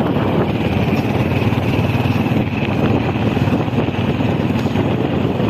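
Steady running noise of a moving motor vehicle: engine and road rumble without a break.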